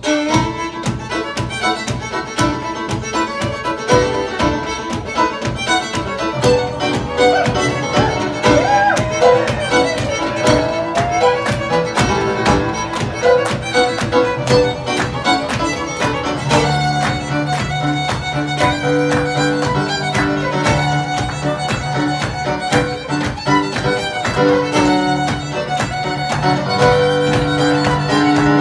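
Live fiddle playing a tune over a strummed acoustic guitar and keyboard. A low held note joins the accompaniment about halfway through.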